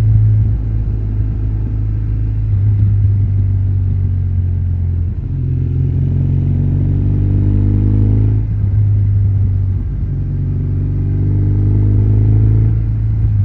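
BMW GS motorcycle engine running under way with a steady low drone, pulling up in pitch twice, about halfway through and again near the end, each rise breaking off as the rider shifts or rolls off the throttle.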